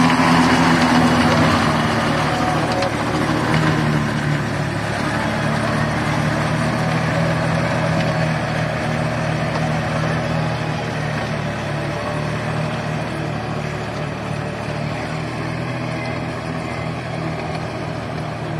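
Compact tractor's diesel engine running steadily while it pulls a rotavator through waterlogged mud, with the churning of water and soil underneath; the sound fades gradually as the tractor moves away.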